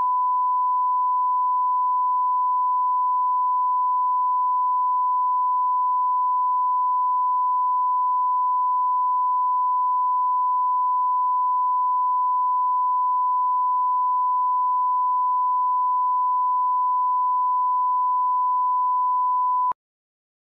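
Steady 1 kHz line-up test tone played with broadcast colour bars, the reference tone for setting audio levels. It cuts off abruptly near the end.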